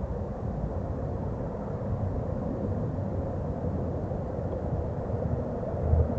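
Steady low rumble of outdoor background noise with no distinct events, swelling briefly near the end.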